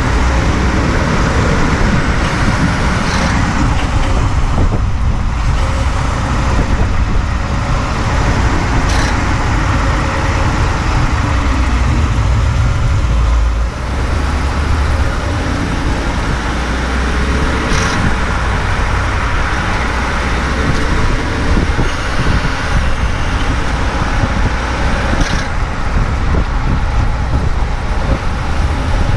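2018 Ford F-150 running, a steady engine and drivetrain rumble that eases about halfway through, with a few brief sharp clicks over it.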